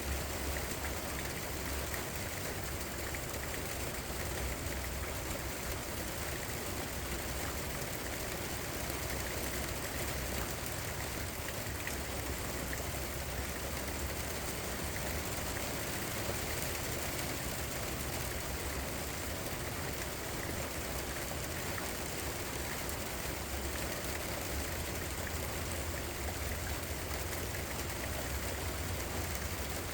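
Steady rain falling, an even hiss of drops with no change in intensity, over a constant low hum.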